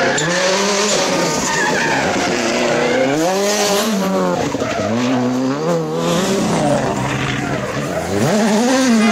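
World Rally Car turbocharged 1.6-litre four-cylinder engines at full rally pace, the revs repeatedly climbing and dropping sharply through gear changes and braking for corners, with tyres skidding as the cars slide through the bends.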